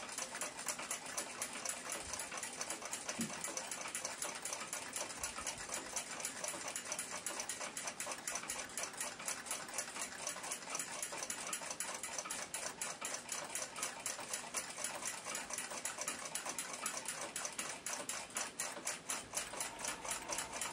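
Ansonia crystal regulator clock ticking steadily and evenly, its open Brocot escapement beating in regular time: the movement is running well after cleaning and oiling.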